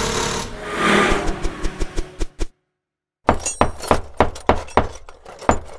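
Channel-intro sound effects: a rushing burst with a run of quickening clicks that cuts off about two and a half seconds in, then after a short gap an even run of sharp, low-ended hits, about four a second.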